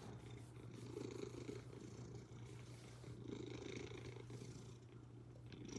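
A domestic cat purring softly and close up, the purr swelling and easing with its breaths.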